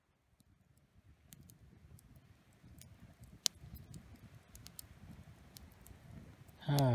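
Faint low rustling with scattered small clicks, one sharper click about halfway. Near the end a man's voice makes a short sound that falls in pitch.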